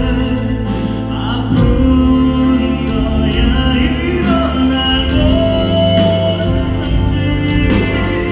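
Live concert music: a band playing a ballad with a singing voice carried over it.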